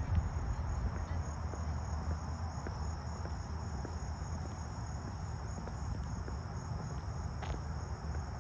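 Insects singing in a steady chorus, a high trill pulsing about three times a second, over a low rumble.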